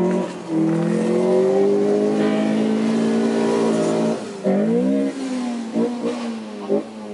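Car engine revving hard, its pitch climbing steadily for about four seconds, then dropping sharply and rising again before a few short throttle blips near the end.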